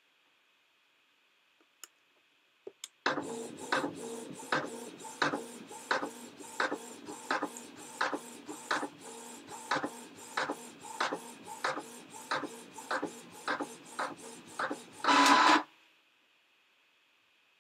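Printer printing: a couple of small clicks, then a steady mechanical run with a regular stroke about every two-thirds of a second, ending in a louder burst and stopping abruptly.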